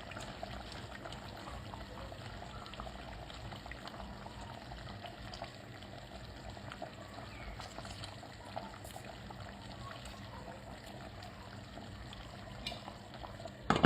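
Chicken curry simmering in a pot: a steady bubbling hiss dotted with small pops and crackles. A sharp knock sounds once near the end.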